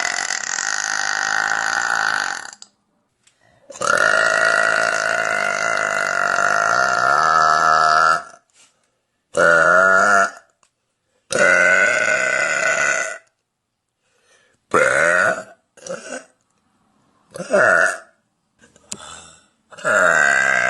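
A woman burping, big and one after another: two long, drawn-out burps of several seconds each, then a string of about six shorter ones.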